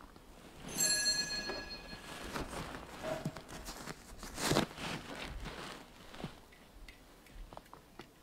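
A single metallic ring about a second in, high and clear, fading away over about a second, followed by soft footsteps, rustling and small knocks of handling.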